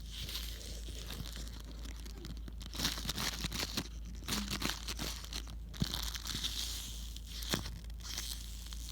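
Irregular crinkling and crackling noise with many scattered sharp clicks, over a steady low hum.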